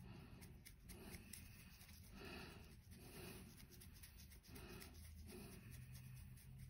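Faint scratching of a dry brush's bristles worked over a 3D-printed token, in short, repeated strokes.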